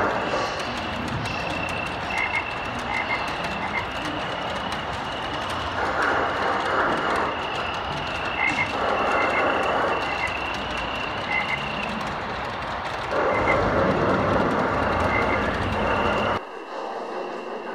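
Large-scale model train rolling along its layout track: a rumble that swells as the cars pass, under a steady high whine with short paired clicks every second or so. It cuts off suddenly near the end.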